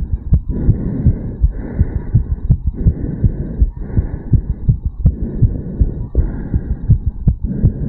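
A man's heartbeat recorded against the chest over the mitral valve area, pumping hard and fast after a jog. Low thumps sit under a whooshing swell that repeats about once a second.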